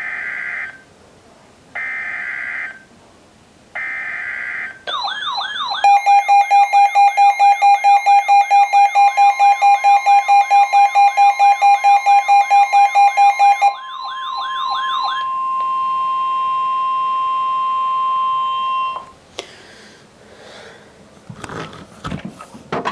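NOAA Weather Radio alert sounding through two weather alert radios. First come three short digital data bursts of the alert header, each about a second long and a second apart. Then one radio's warbling siren alarm and the other's rapid pulsing beep go off together, while the broadcast's steady 1050 Hz warning alarm tone sounds for about ten seconds. Near the end come handling knocks and rumble as the camera is moved.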